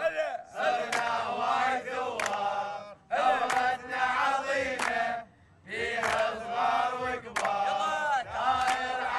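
A group of men chanting together in unison with hand-clapping, in rhythmic phrases of about two to three seconds with short pauses between them: a protest chant.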